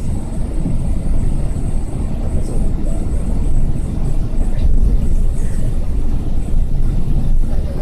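Cabin noise inside an Airbus A380 taxiing: a steady low rumble from the engines and the rolling airframe, heard through the cabin.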